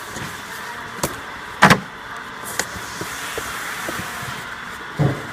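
Knocks and thumps of cardboard and stacked paper print being handled, over a steady background hum. The loudest knock comes about a second and a half in, and a duller thump comes near the end.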